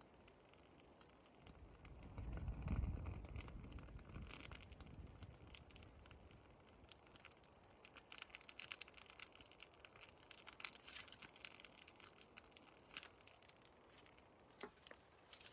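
Faint, irregular crackling and popping of burning straw and leaves. A brief low rumble comes about two to three seconds in.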